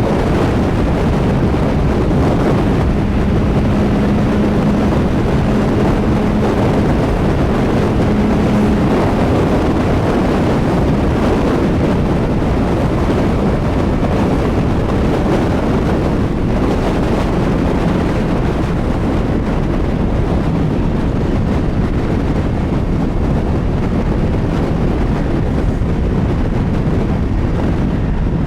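CFMoto 675SR-R sport bike at steady highway speed. Heavy wind rush over the onboard microphone dominates, with the three-cylinder engine running steadily underneath.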